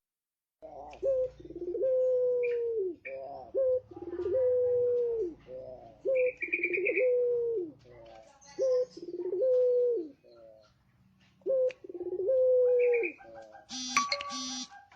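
A male puter pelung dove (a domestic ringneck dove) cooing in repeated phrases. Each phrase is a short note and then a long, low held coo that drops at its end, five times, with faint higher chirps in between. Near the end comes a short electronic-sounding chime.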